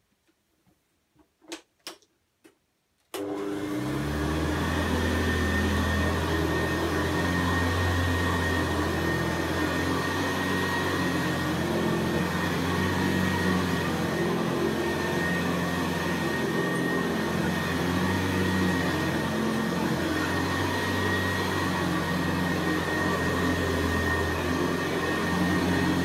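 Hoover Senior Ranger U4002 upright vacuum cleaner: after a few faint clicks, its motor switches on about three seconds in and runs steadily as it is pushed over carpet, with a low hum and a steady high whine.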